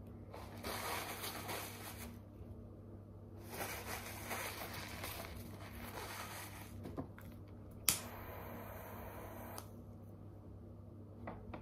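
Hands rubbing and crumbling dry material between the fingers: dry rustling in two bursts. A sharp click comes about two-thirds through, followed by a short hiss.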